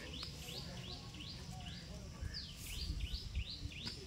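A bird chirping in a steady run of short rising notes, about three a second, over a low rumble.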